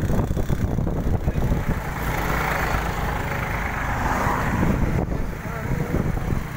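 Vehicle running along a road, a constant low rumble with wind buffeting the microphone. A rushing noise swells for a few seconds in the middle.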